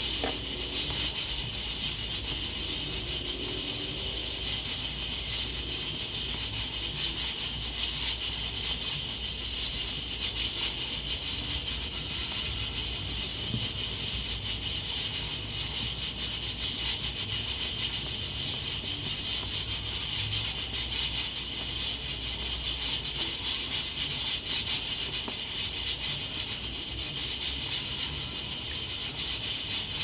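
Nigro pressure cooker with an external locking lid hissing steadily as steam escapes through its pressure valve. The continuous high hiss is the sign that the cooker is up to pressure.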